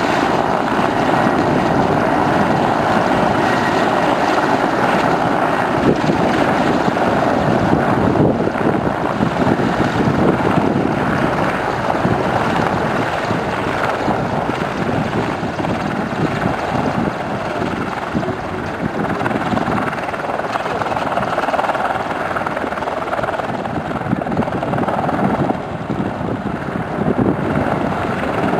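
Mil Mi-24 attack helicopter's twin turbine engines and main rotor running as it flies low, a steady loud noise with a beat from the rotor blades. It eases somewhat in the middle and grows again near the end.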